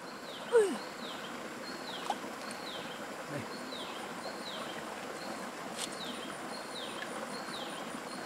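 A bird calling over and over: a high, falling note about one and a half times a second. Faint insects pulse underneath. About half a second in, a short low falling sound stands out as the loudest moment.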